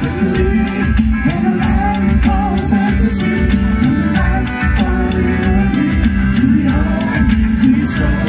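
Live band playing a tune with a steady drum beat: accordion, a homemade junk drum kit, a keyboard and a banjo-bodied guitar, with a man singing over it.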